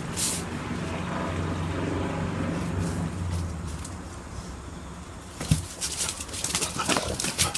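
Weimaraner puppies playing on a concrete floor. A low rumble lasts the first few seconds, and from about two-thirds of the way in there is a quick run of claw clicks, scuffles and knocks as the puppies tussle.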